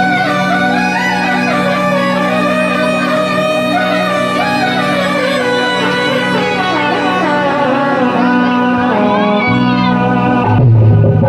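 Instrumental jagran band music: a lead melody that bends and wavers in pitch over a steady sustained drone, with drums coming in near the end.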